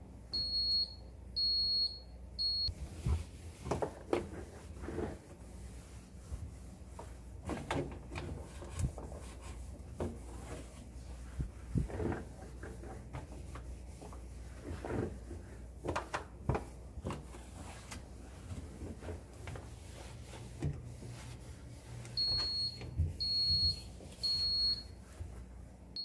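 LG side-by-side refrigerator's door-open alarm beeping: three short high beeps about a second apart, and three more near the end, the sign that the doors have been left open. In between, a damp cloth rubs and wipes inside the fridge over a low steady hum.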